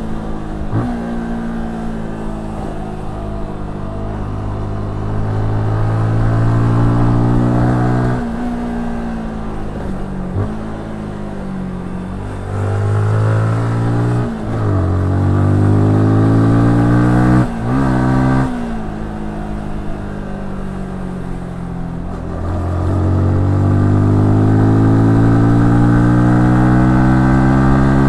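Yamaha R15S's 155 cc single-cylinder engine under way: it climbs in pitch under acceleration, drops sharply at several quick gear changes, and falls away slowly during two stretches of slowing down.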